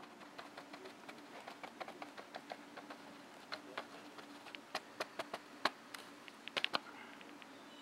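Faint steady hum with a run of irregular sharp clicks and ticks as an ÖBB class 1216 Taurus electric locomotive creeps up at low speed to couple to the train. The clicks are loudest about five to seven seconds in.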